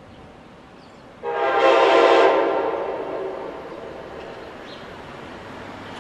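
Horn of an approaching electric passenger train: one blast of about two seconds, a chord of several notes, starting suddenly about a second in and then dying away, over the faint steady sound of the train still some distance off.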